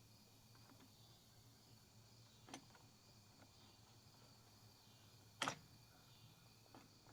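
Two sharp clicks about three seconds apart, the second louder, from the Oregon 410-120 chain sharpener being reset for the other side of the chain, with no grinding. Faint steady insect chirring underneath.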